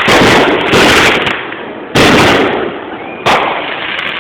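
Fireworks going off: four loud bangs about a second apart, each dying away before the next.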